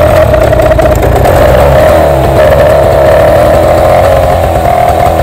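Small two-stroke outboard motor running steadily at a fast idle, just revived after being submerged and cleared of water. It is run on the stand with no cooling water hooked up.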